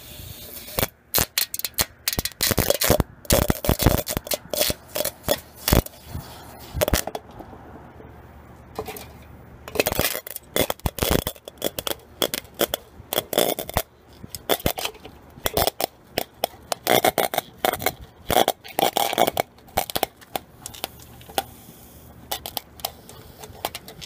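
Irregular crackling and popping as a microwave-oven transformer's high-current secondary heats an aluminium soda can of water through copper clamps: arcing and sizzling where the clamps bite the boiling, disintegrating can.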